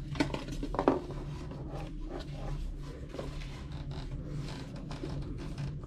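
Hands turning a Fox Speedframe mountain-bike helmet over, its plastic shell and visor rubbing and scraping against the fingers, with a couple of light clicks about a second in.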